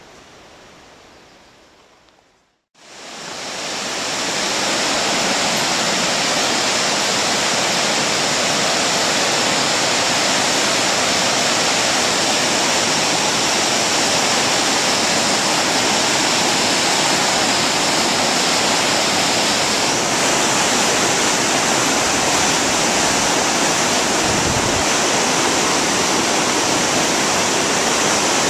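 River rapids rushing below a suspension bridge, a loud steady sound of white water. It starts about three seconds in, after a faint hiss that dies away, and holds even after that.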